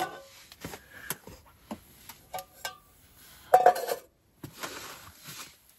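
Small metal camp pot and utensils being handled: scattered light clinks and knocks, with a louder clatter about two-thirds of the way through.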